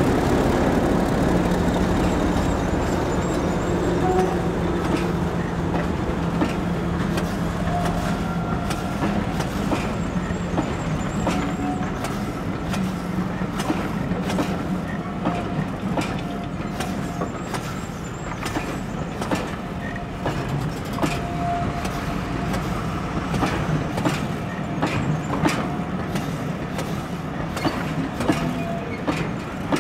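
English Electric Class 50 diesel locomotive passing with its train. Its steady engine note fades over the first ten seconds or so, then the coaches roll by with sharp clicks over the rail joints, coming quicker near the end, and brief wheel or brake squeals.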